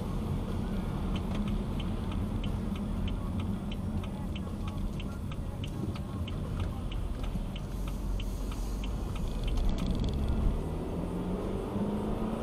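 Car turn-signal indicator ticking evenly, about three ticks a second, stopping about nine and a half seconds in, over the steady rumble of the car's engine and tyres on a wet road, heard from inside the cabin.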